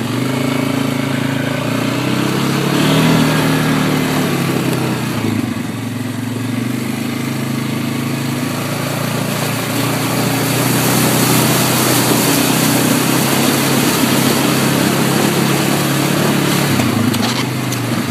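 Off-road vehicle engine running at low trail speed, its pitch rising and falling with the throttle. A hiss joins about ten seconds in.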